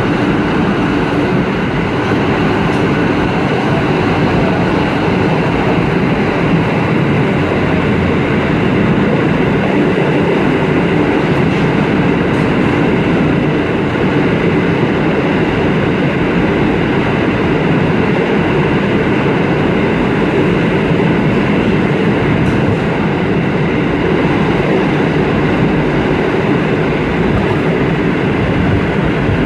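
New York City subway train running steadily at speed through a tunnel, heard from inside the rear car: a constant, loud noise of wheels on rail and car running gear, with no braking or stops.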